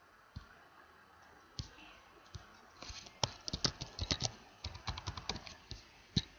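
Computer keyboard typing: a few separate key presses, then a quick run of keystrokes from about three seconds in until about five and a half seconds, and one last key near the end.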